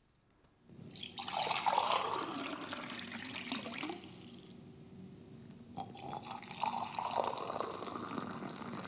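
Two short recordings of water being poured, one after the other, played to contrast cold water with hot water: the first pour runs from about a second in to about four and a half seconds, the second starts about six seconds in.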